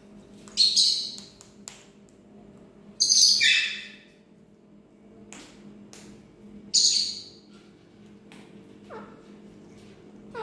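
A parrot giving three loud, harsh screeching calls a few seconds apart, each about a second long, the middle one sliding downward in pitch. A few faint clicks and a steady low hum lie underneath.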